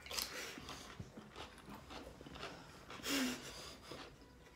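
People biting and chewing raw cucumber: a few faint, crisp crunches and mouth noises. There is a short, louder muffled vocal sound about three seconds in.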